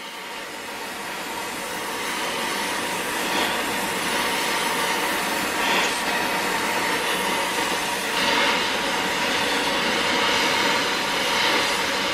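Oxy-fuel torch flame hissing steadily against a steel strap clamped in a vise, heating the metal so the bend can be opened up. The hiss builds over the first two seconds or so and then holds.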